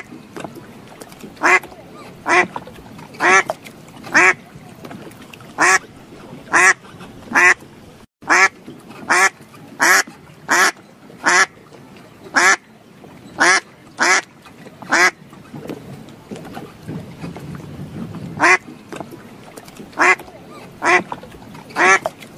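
A bird giving a steady series of short, harsh calls, about one a second, with a pause of a few seconds about two-thirds of the way through.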